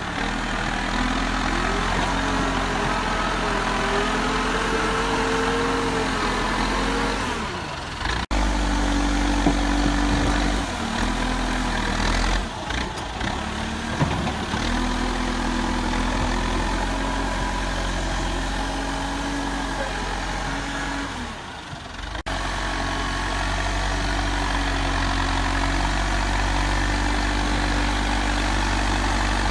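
Diesel engine of a JCB backhoe loader running steadily, its pitch shifting up and down as the machine works. The sound breaks off briefly twice, about eight seconds in and again past twenty seconds.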